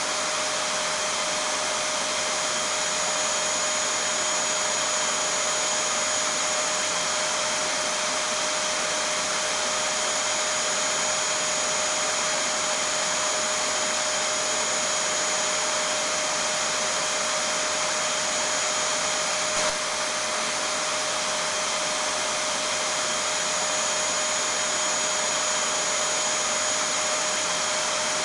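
Vacuum cleaner running steadily: an even rushing of air with a constant high whine and a lower hum tone, unchanging throughout, with a faint tick about two-thirds of the way through.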